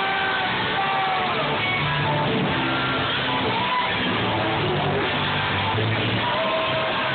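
Loud live music with singing, heard through the din of a crowded bar.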